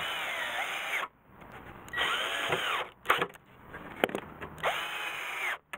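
Ryobi cordless drill driving screws into MDF in three short runs. In each run the motor rises in pitch and then stops. A single sharp knock comes between the second and third runs.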